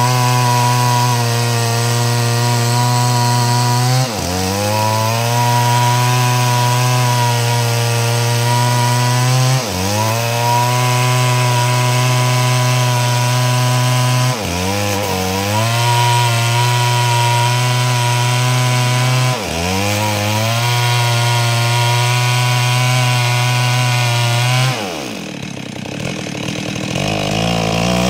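Stihl two-stroke chainsaw at full throttle ripping a log lengthwise into planks. The engine pitch sags briefly about every five seconds and recovers. Near the end it falls to a low idle, then revs back up.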